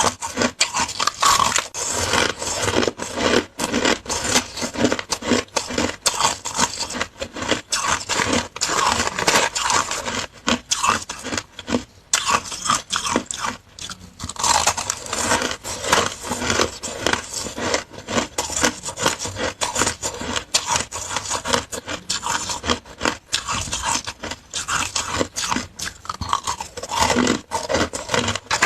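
Close-miked chewing and crunching of flavoured shaved ice: a dense, continuous run of crunches with a couple of short pauses.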